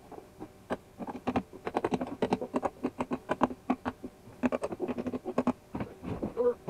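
Rapid, irregular light clicks and taps as metal bolts are set into the holes of a hollow plastic dump-cart tub and the tub is handled and tipped over.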